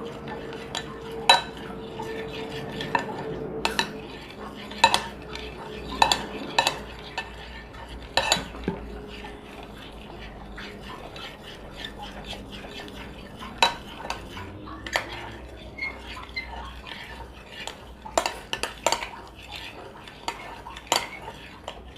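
Stirring a glue and shaving-foam slime mixture in a container with a utensil: a steady scraping, with the utensil knocking against the container's sides at irregular moments.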